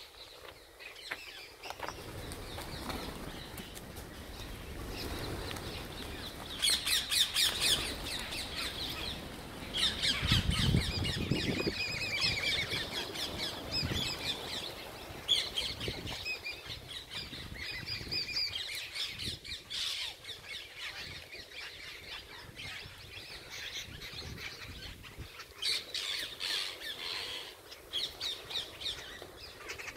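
A flock of birds squawking and chattering in rapid, overlapping calls, loudest in spells about a quarter of the way in and again near the end. A low rumble comes in about a third of the way through.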